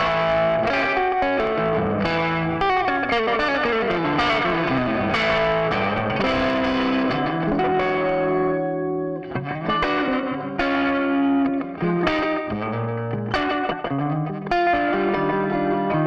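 Electric guitar played through a chain of TC Electronic effect pedals with light overdrive, in phrases of notes, some gliding in pitch. The sound dips briefly about nine seconds in before a new phrase starts.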